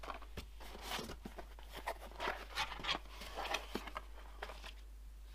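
Cardboard boxes and packaging handled by hand: an irregular run of light rustles, scrapes and soft knocks.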